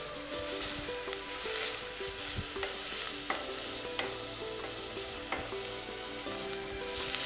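Chopped onions frying in hot oil in a stainless steel pot, sizzling steadily as they soften, while a stirring utensil knocks against the pot with sharp clicks about once a second.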